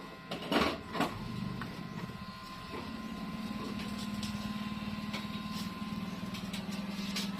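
A few knocks as the washing machine is handled, then about three seconds in a spin-dryer motor starts running with a steady hum and a fast, fine rattle.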